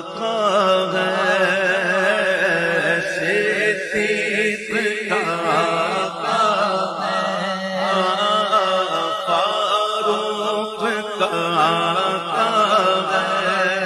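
Man singing an Urdu devotional naat, holding long drawn-out notes with a wavering vibrato, over a steady low drone.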